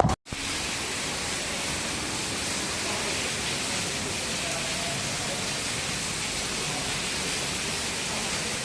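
Heavy rain falling, a steady even hiss, after a split-second silent gap at the very start.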